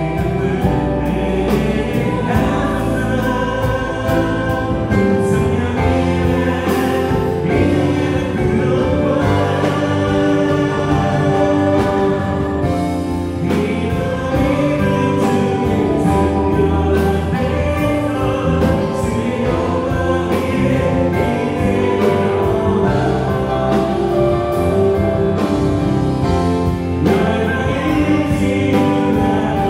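Live gospel worship band playing: electric guitar, electric bass, synthesizer keyboards and a drum kit, with a group of voices singing a praise song over a steady beat.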